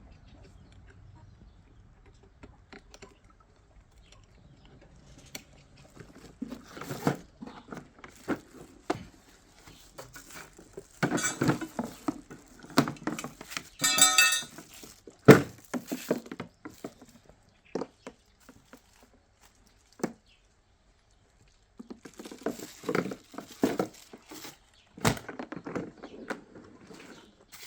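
Irregular clattering, clinking and knocking of electric lawn mower parts being handled and fitted together during assembly. The knocks come in two busy stretches, with a short ringing clink about halfway through.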